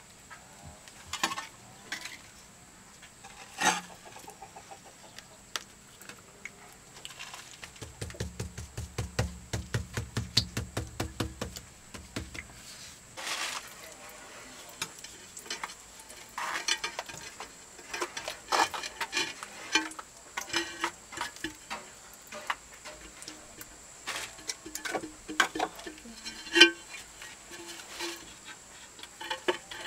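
Hand tiling work: a trowel scraping and clinking against mortar and ceramic tiles, with irregular taps and clicks, and a run of quick low knocks about eight seconds in lasting some four seconds.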